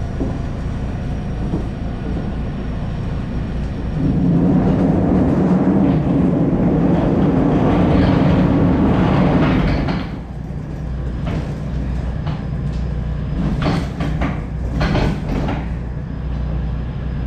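Rolling tarp cover on a flatbed trailer being pulled closed: the tarp frame's rollers rumble along the side rails, loudest for several seconds in the middle, followed by a few sharp knocks and clanks as it comes to the end.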